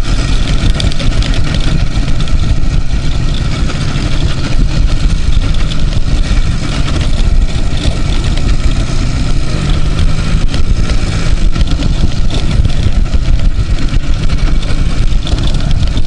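Two-stroke engine of an IZh motorcycle running steadily as it is ridden along a dirt forest track, heard from the rider's seat as a loud, continuous rumble.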